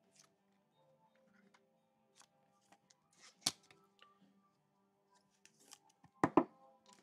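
Trading cards being handled and slid into plastic sleeves: scattered light clicks and rustles, a sharp click about three and a half seconds in, and two quick knocks near the end, the loudest sounds. Faint music underneath.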